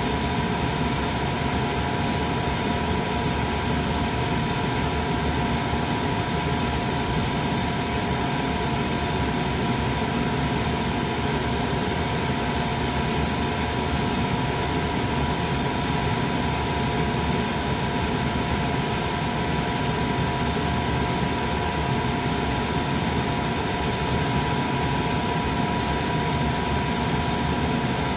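Steady drone and hiss of a powered-up Challenger 601 business jet's cockpit equipment, with two held whining tones over it.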